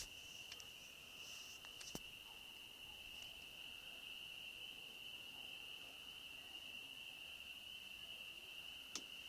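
Faint, steady high-pitched insect trill, with a couple of short clicks, one about two seconds in and one near the end.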